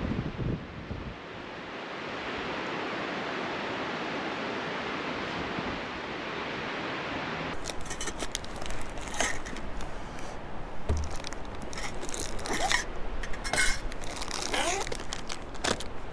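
Steady wind noise on the microphone. About seven seconds in it gives way to a run of scrapes, clicks and short zip-like sweeps.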